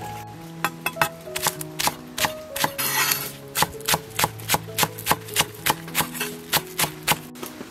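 Cleaver chopping green onions on a wooden chopping block: sharp knocks of the blade on the wood, quickening to a steady rhythm of about three a second, over soft background music.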